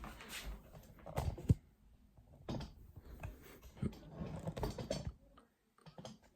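Handling noise of a camera tripod being adjusted: irregular clicks, knocks and rattling from its joints and legs, with one sharp knock about a second and a half in.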